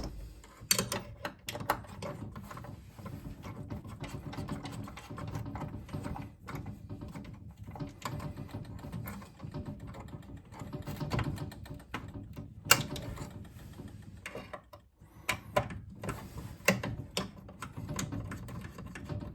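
Screws being tightened by hand with a screwdriver: irregular scraping and clicking of the tool and screws, with a few sharper clicks, the loudest about two-thirds of the way through.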